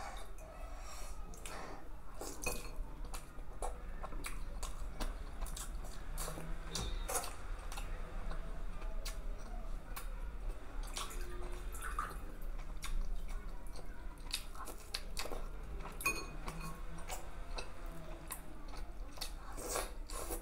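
Close-miked wet chewing, squishing and lip-smacking of someone eating syrup-soaked sponge rasgulla by hand, with many short sharp mouth clicks. Near the end come finger-licking sounds.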